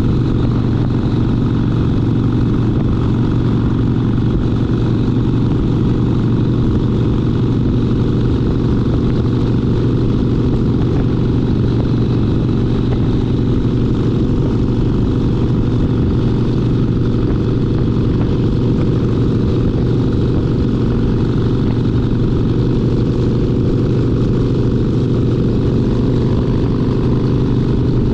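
Harley-Davidson Sportster Seventy-Two's 1200 cc air-cooled V-twin running under way at a steady engine speed, its exhaust note unchanging.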